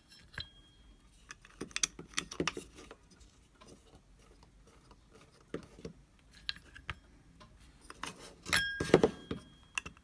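Small screws clinking and rattling in a metal parts dish as they are picked out, with scattered clicks and taps from handling the plastic mass air flow sensor housing. A short clear metallic ring comes just after the start and again, louder, near the end.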